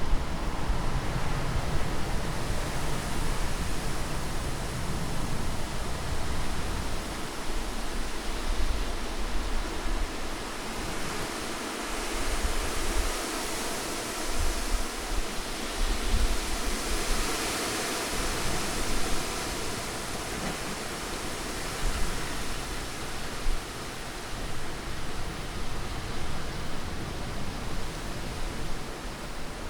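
Recorded wind for sleep and tinnitus masking: a steady rushing noise that swells and eases slowly, its hiss strongest a little past halfway.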